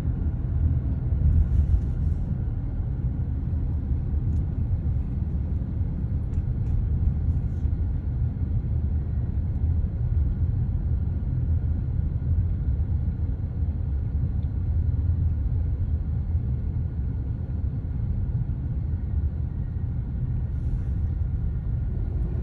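Steady low rumble of vehicle noise, with no distinct knocks or changes.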